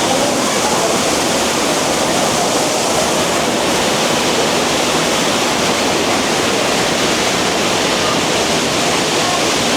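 Waterfall and creek water rushing through the canyon: a loud, steady sound of falling water with no break.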